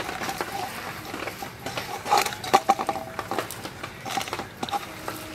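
A hand kneading shredded cabbage, grated carrot and capsicum with dry flour in a steel bowl: irregular rustling with light clicks and scrapes of fingers against the bowl.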